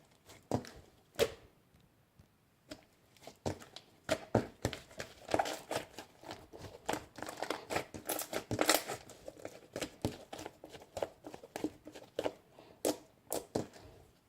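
Irregular crinkling, rustling and clicking of something being handled at close range, busiest in the middle.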